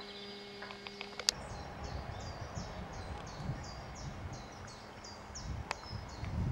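A small bird singing a run of short, high, falling notes, about three a second, over a low rumble of wind on the microphone. About a second in, a steady low hum stops with a sharp click, the loudest sound.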